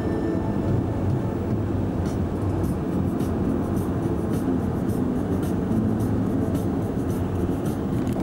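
Steady road and engine rumble of a moving car, heard from inside the car at highway speed.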